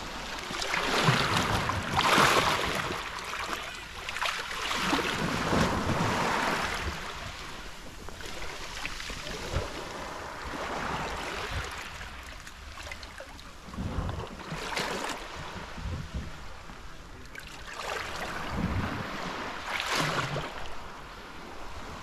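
Small sea waves washing up on a pebble beach, several surges a few seconds apart, each swelling into a hiss and fading. Wind rumbles on the microphone.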